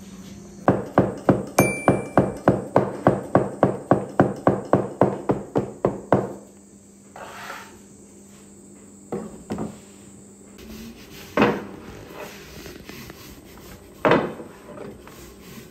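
Rapid, even knocking, about four sharp strikes a second for some five seconds, then a few single knocks spaced several seconds apart.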